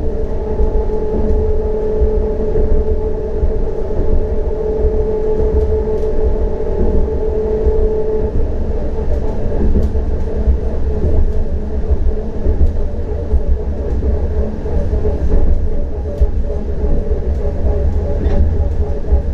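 CAF Urbos 100 tram running between stops: a steady low rumble of wheels on rail with the steady whine of the electric traction drive. The strongest whine tone fades out about eight seconds in.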